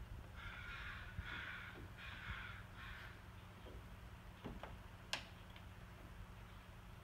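A crow cawing four times in quick succession, harsh calls each about half a second long. About five seconds in, a single sharp tap.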